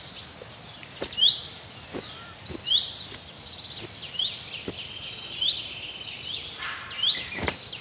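Birds calling: a short, high, rising chirp repeated about once a second over a steady high-pitched chorus, with a few sharp clicks and knocks in between.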